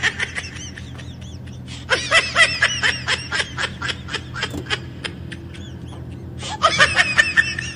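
Bursts of high-pitched laughter in quick repeated "ha" strokes: a short run at the start, a long run from about two seconds in, and another short run near the end, over a steady low engine hum.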